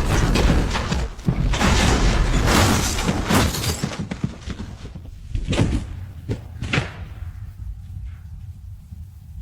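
Loud banging and thuds, dense for the first few seconds, then two sharp bangs about a second apart before dying away.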